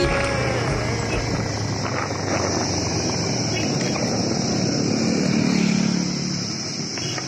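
Motorcycle running along a road with wind rushing over the microphone, the engine note swelling briefly about five seconds in.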